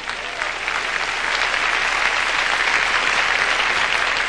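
Large congregation applauding, building over the first second and then holding steady.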